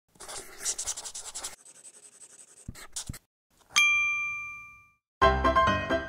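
Pencil scratching across paper, then two quick taps, then a single bright ding that rings and fades over about a second. Music with struck, piano-like notes starts about five seconds in.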